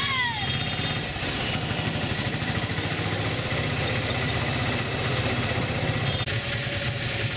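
Small auto-rickshaw engine running steadily as the tuk-tuk drives along, heard from inside its open passenger cabin as a low, rapid, even throb.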